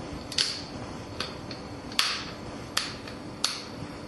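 The plastic screen bezel of an Acer Aspire One laptop snapping onto the display lid clip by clip as it is pressed around the edge: five sharp clicks about a second apart, the one about two seconds in the loudest.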